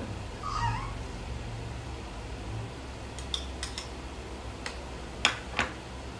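Cutlery clinking against a plate while eating: a few sharp clinks around the middle, then three more, the loudest just after five seconds, over a low steady hum.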